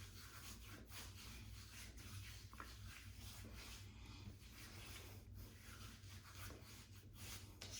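Faint, irregular rubbing and rustling, like hands or a towel moving against skin, over a steady low hum.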